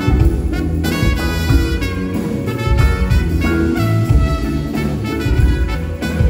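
Live band playing a jazzy instrumental passage: held melody notes that change every half second or so over a heavy, pulsing bass line.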